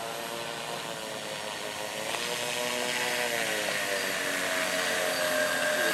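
Twin electric motors and counter-rotating propellers of a model airplane whirring as it taxis on the ground. The pitch dips and recovers about halfway through, and the sound grows louder toward the end.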